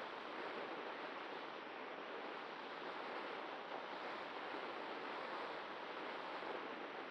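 Steady rush of air over the onboard camera of a Cularis model glider as it soars in a thermal. No motor tone is heard, so the glider is flying with its motor off.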